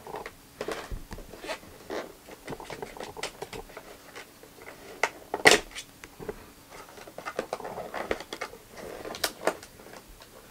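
Clear plastic blister tray crackling and clicking as it is handled and pried at, with a sharp snap about five and a half seconds in and another near the end.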